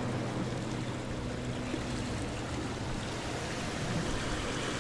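Road noise inside a moving car: steady rush of tyres and wind, with a low engine hum that fades about two seconds in.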